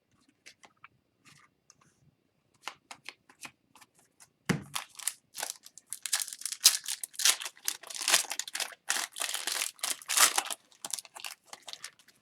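Upper Deck Series 1 hockey card pack: a few faint handling clicks, a thump about four and a half seconds in, then a dense run of crackling and ripping for about five seconds as the foil wrapper is torn open and crinkled, thinning out near the end.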